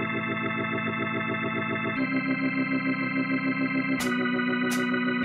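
Background music: held keyboard chords that change about two seconds in and again about four seconds in, with two brief bright swishes near the end.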